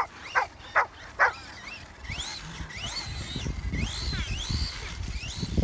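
A dog barks three quick times, then an RC monster truck's electric motor whines up and down in pitch over and over as it accelerates and backs off, over a low rumble of the truck running across grass.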